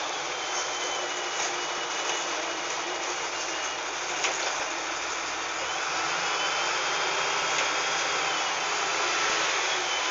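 LiAZ-5256.25 city bus's diesel engine running steadily, heard inside the bus, with a thin high whine that wavers in pitch.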